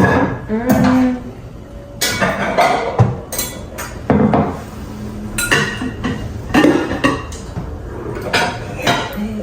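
Kitchen dishes and utensils clinking and knocking together as they are handled: a string of separate clinks and clatters.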